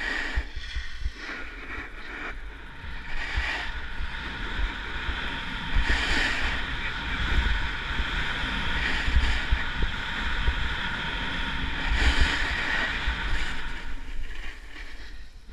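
Edges scraping and hissing over groomed, packed snow during a fast downhill run, swelling with each turn, with wind buffeting the camera microphone as a low rumble.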